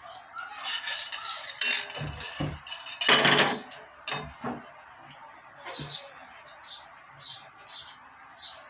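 Dishes and utensils clattering for the first few seconds, with one louder, longer scrape or clatter a little past the middle. After that a small bird chirps over and over, a short falling chirp about twice a second.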